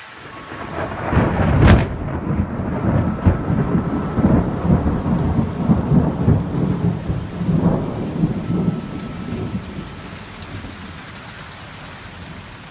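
A thunderclap about a second and a half in, then thunder rumbling for several seconds and fading, over steady rain falling.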